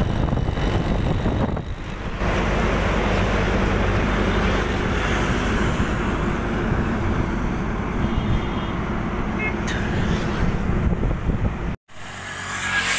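Steady engine and road noise of a moving vehicle, heavy at the low end; it cuts out abruptly near the end.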